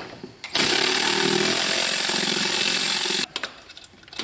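Small cordless power tool running steadily for nearly three seconds to back out a 13 mm retaining bolt, then cutting off suddenly, followed by a few light clicks.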